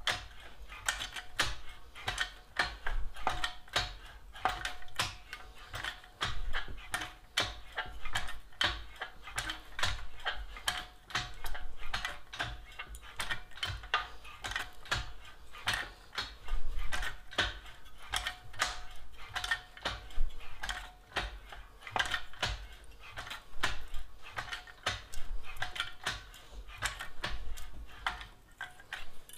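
Shrinker jaws of a deep-throat shrinker stretcher biting and gathering a sheet-metal strip, shrinking one edge so the strip curves. Sharp metallic clicks and clacks in repeated bursts, about one every second or so.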